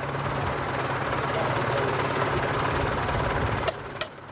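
Vintage tractor engine idling steadily with a low hum. Near the end come two sharp clicks, and after them the engine is heard more faintly.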